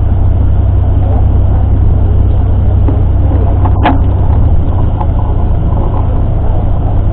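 Tour bus engine and road noise heard from inside the moving bus: a loud, steady low drone. One short, sharp click-like sound just before the middle.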